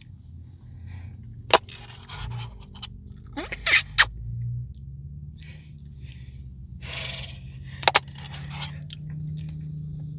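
A spoon scraping and clicking against an ice cream cup as the last of a Blizzard is scraped out. There are several sharp clicks, loudest about a second and a half in, around four seconds in, and near eight seconds, over a steady low hum.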